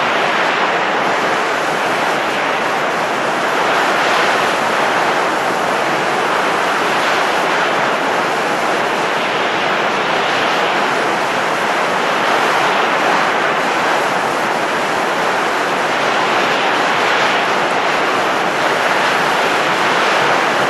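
Steady rushing of blowing wind, swelling gently and easing every few seconds.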